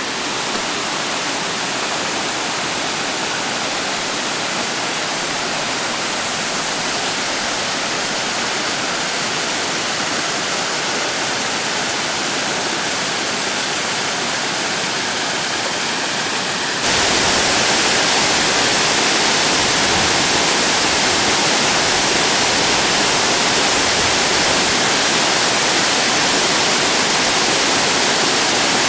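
Waterfall pouring steadily, a dense even rush of falling water. The sound jumps suddenly louder and brighter about seventeen seconds in, then holds steady.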